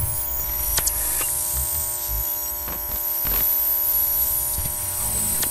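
A steady electric buzz: a dense whine of many held tones, broken by a few sharp clicks and low thumps.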